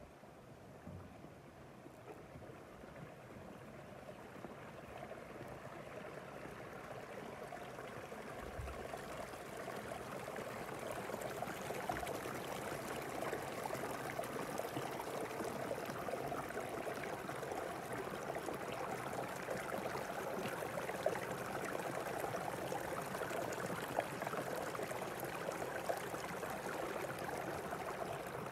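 Steady rushing water, like a stream, growing gradually louder.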